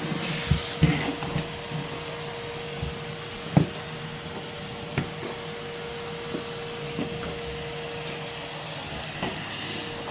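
Henry cylinder vacuum cleaner running with a steady hum and a constant whine, with a few short knocks and clacks as the nozzle works the floor; the loudest knock comes about three and a half seconds in.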